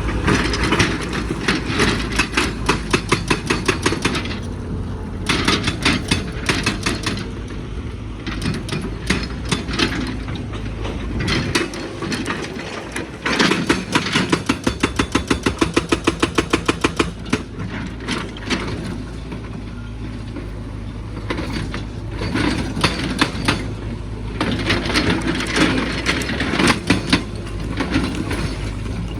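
Excavator working hard rock: the diesel engine runs steadily under a dense clatter of metal and stone as the bucket scrapes and breaks out rock, with a run of rapid, even clanks about halfway through.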